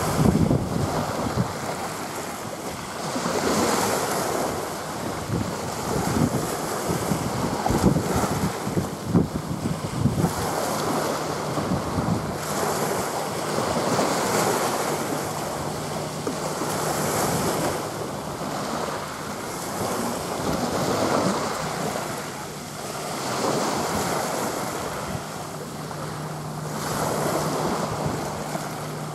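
Small waves washing onto the beach, swelling and fading about every three to four seconds. Wind buffets the microphone for the first couple of seconds, and a faint steady low hum comes in about ten seconds in.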